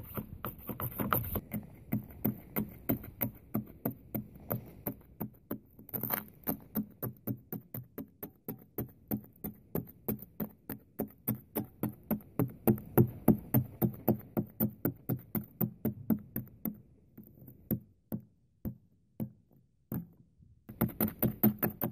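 Plastic ice scraper scraping ice and snow off a frozen car windshield in quick, even strokes, about two to three a second. There is a pause of a few seconds near the end, with only a few scattered clicks, before the scraping starts again.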